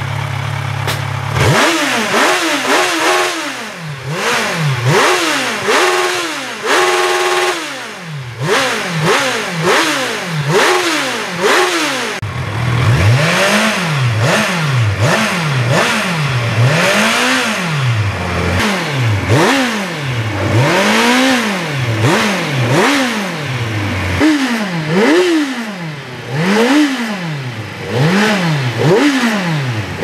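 Kawasaki Z1000's inline-four engine, at normal operating temperature and on its stock exhaust, revved over and over in neutral: the revs rise and fall about once a second, fall back to idle a few times, and are held high briefly about seven seconds in.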